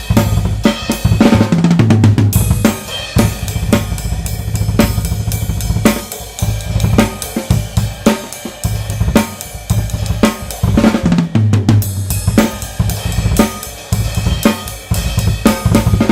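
Tama Swingstar drum kit with Meinl cymbals played continuously: a busy run of rapid snare, bass drum and hi-hat hits under ringing cymbals.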